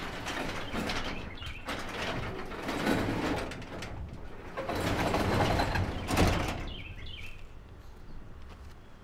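A manual sectional garage door being pulled shut by hand. It rumbles down its tracks in a few long pushes and closes with a thud about six seconds in. A bird chirps near the end.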